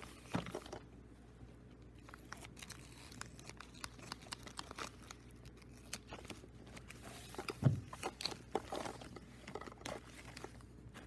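Thin plastic cassette packaging bag crinkling and rustling in short scattered crackles as it is handled and opened, with one dull thump about three-quarters of the way through.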